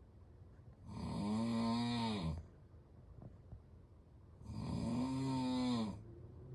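Snoring: two long pitched snores about three and a half seconds apart, each bending slightly up and then down in pitch, with quiet breathing between them; a third snore begins near the end.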